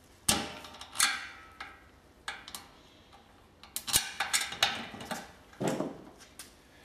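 Irregular small metal clicks and clinks as bolts are handled and fitted, fixing the motor unit onto the mixer's stainless steel lid.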